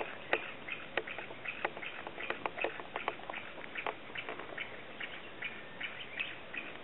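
Short chirping calls repeating two or three times a second, with sharp clicks scattered among them.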